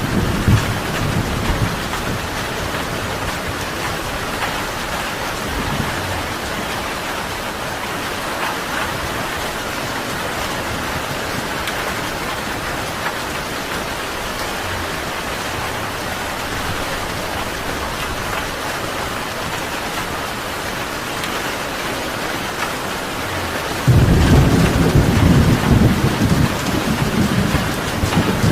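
Steady heavy rain falling, with thunder: a low rumble fades out in the first second, and a louder rolling rumble breaks in suddenly near the end.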